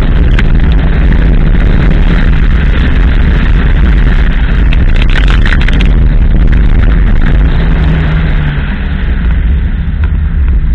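Abarth 500 running fast over gravel, heard through a camera hanging below the door mirror. There is heavy wind buffeting and tyre-on-gravel roar, with stones clattering against the body in spells. The noise eases off about eight seconds in as the car slows.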